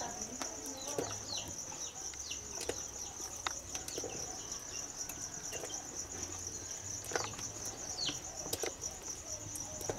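Insects chirring: a steady, high, rapidly pulsing trill with no break. A few short falling chirps and some faint scattered clicks sound over it.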